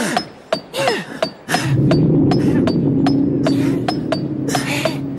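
Pickaxes striking hard ground over and over, a sharp metallic clink about three times a second. Soon after the start, a loud, steady low drone joins the strikes and runs under them.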